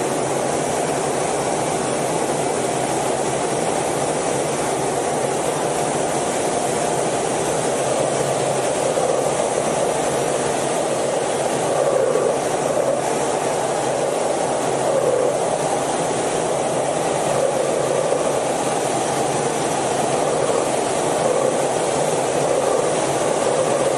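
Steady jet engine and airflow noise inside an F/A-18 cockpit in flight: a constant rushing drone that holds an even level with no change in pitch.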